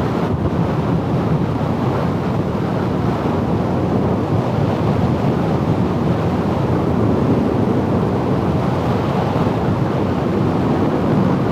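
Steady rush of wind buffeting a microphone tucked into a motorcycle helmet's cheek pad at highway speed, a dense low roar with no let-up.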